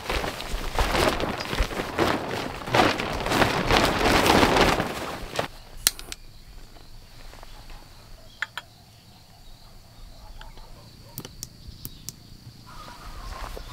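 Wood campfire crackling: a dense rush of crackling and rustling for about the first five seconds, then only scattered sharp pops over a faint steady high hiss.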